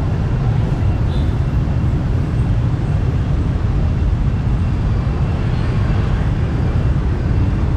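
Steady city street traffic: a continuous low rumble of motorbikes and cars on the road beside the sidewalk.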